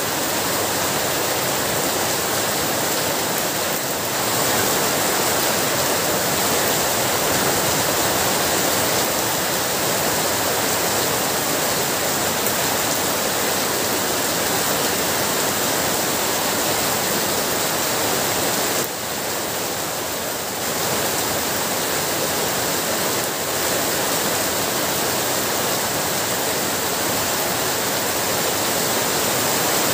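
Heavy rain falling steadily, a dense even hiss that eases slightly for a moment about two-thirds of the way through.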